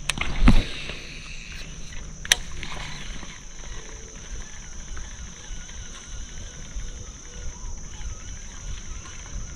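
Insects chirring steadily on one high pitch. A short thump comes about half a second in, and a sharp click about two seconds later.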